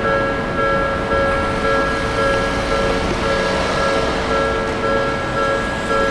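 Japanese level-crossing warning bell ringing its repeated electronic two-tone strike, about two strikes a second, over a low rail and traffic rumble.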